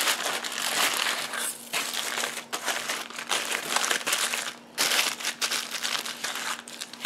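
Aluminium foil crinkling and crumpling in irregular spurts as hands roll a seasoned turkey leg up tightly in a foil sheet, with a short pause just under five seconds in.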